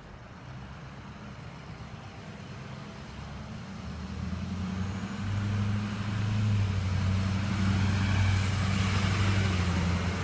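Motor vehicle on the street, its low steady engine hum growing louder over several seconds as it comes near, with tyre hiss rising near the end.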